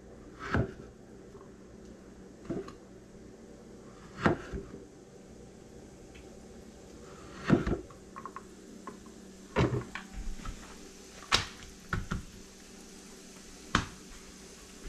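A kitchen knife knocking on a plastic cutting board as small pieces are sliced, in single separate knocks about one to two seconds apart, over a low steady hum.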